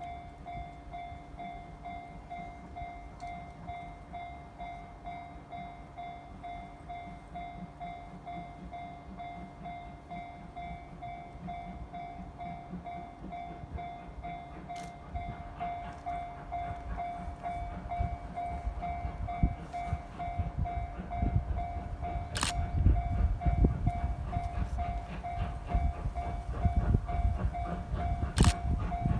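Japanese level-crossing warning bell ringing in a steady, rapid pulsing clang. From about halfway in, the rumble of the approaching D51 498 steam-hauled train builds and grows loud near the end, with two sharp cracks.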